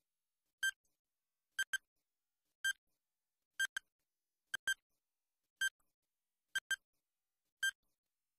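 Countdown timer sound effect: short electronic ticks about once a second, some of them in quick double pairs, with silence in between.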